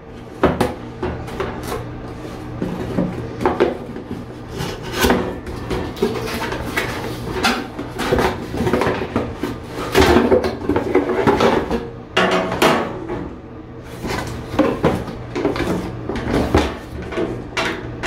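Cardboard hair-dryer box being handled and opened: irregular knocks, scrapes and rustles of cardboard as it is turned over and its flaps pulled open, busiest about ten seconds in, over a low steady hum.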